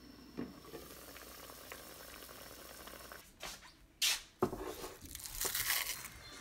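Faint bubbling from pork boiling in a covered pot. After about three seconds comes loud crinkling and rustling of a plastic bag over a bowl of shrimp paste, in several bursts with a soft thump among them.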